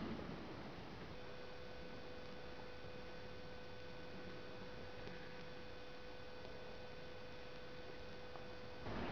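A single soft, steady tone held at one pitch for about eight seconds, starting about a second in and stopping shortly before the end, over the quiet hush of a large church.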